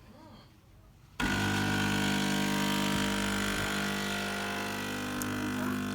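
De'Longhi Dedica EC680 espresso machine's pump switching on about a second in and running with a steady buzzing hum.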